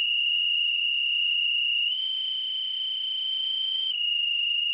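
A loud, high whistle held on one note, stepping up a little about two seconds in and back down about four seconds in.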